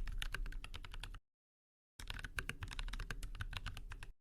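Rapid computer-keyboard typing, a quick run of keystroke clicks that stops about a second in and resumes after a dead-silent gap, then cuts off just before the end.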